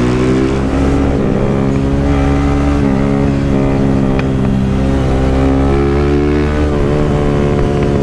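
Honda 160 single-cylinder motorcycle engine heard from the rider's seat, pulling steadily under throttle at road speed. Its pitch climbs slowly, with a few brief dips where it is shifted up a gear.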